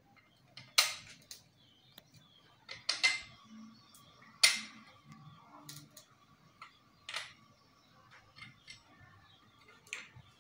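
Irregular sharp knocks and clicks, about seven in ten seconds, the loudest near the start and in the middle, as a bent plastic pipe is handled and pressed against a wall.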